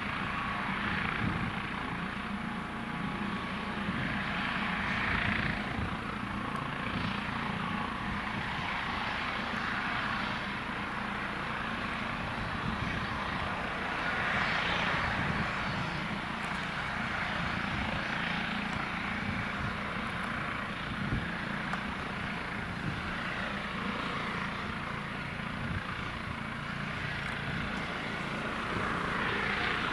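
Eurocopter EC155 helicopter running on the ground, its twin turbines and rotors turning steadily as it turns on the spot. A hissing whine swells and fades a few times over the steady low drone.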